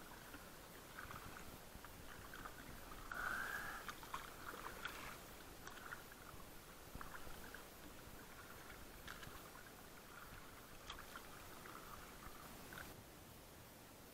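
Faint seawater sounds: light lapping and small splashes, with scattered soft clicks.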